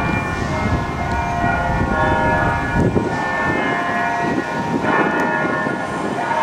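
Church bells ringing, many overlapping tones hanging on together, over a low rumble.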